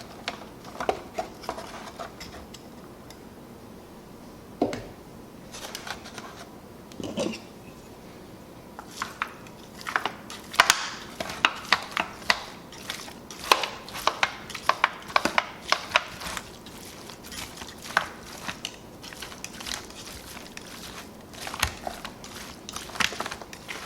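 Meat claws working through a cooked smoked pork roast: a few soft knocks and squishes as the bone is pulled out, then from about ten seconds in a rapid run of sharp clicks and scrapes as the claws shred the tender pork.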